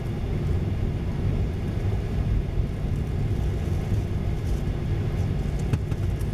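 Steady low rumble of cabin noise inside a Boeing 737-900ER on the ground before takeoff, with a few faint clicks in the second half.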